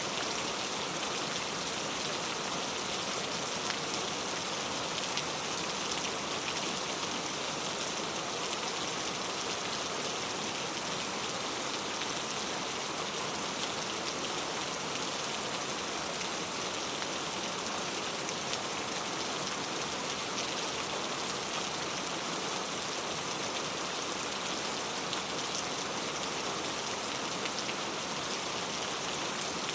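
Heavy rain falling steadily, a dense even hiss of drops on a surface with scattered sharper drop ticks.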